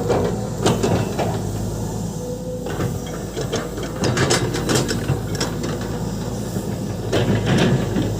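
Volvo EC200D excavator's diesel engine running steadily under a hiss, with repeated metallic knocks and clanks from the machine at work.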